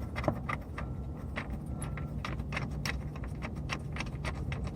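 Scattered light metallic clicks and clinks as bolts and nuts are handled and started onto a fog light's mounting, over a low steady hum.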